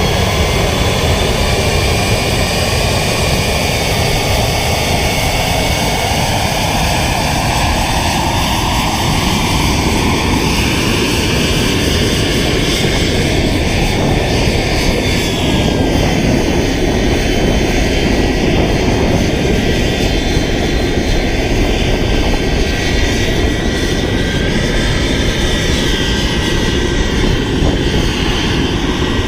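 Aircraft engine running steadily and loud, with thin whining tones that drift slowly up and down in pitch.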